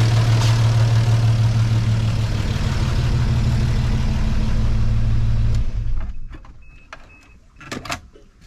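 The 1988 Toyota FJ62 Land Cruiser's 3F-E inline-six idles steadily, then is switched off a little over five seconds in and the running stops abruptly. Three short high beeps and a few knocks follow.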